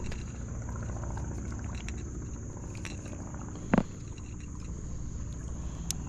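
Outdoor background: a steady, high insect trill over a low rumble, with one sharp knock about four seconds in.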